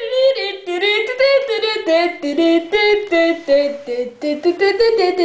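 A child singing a quick tune without words, hopping from note to note several times a second.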